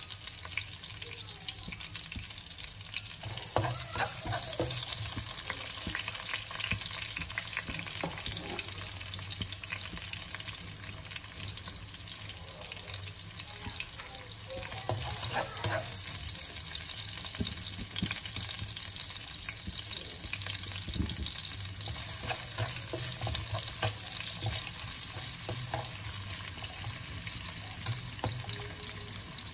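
Chopped garlic, then diced red onion added partway through, sizzling steadily in hot oil in a nonstick wok. A spatula stirs and scrapes the pan now and then, adding clicks over the crackling hiss.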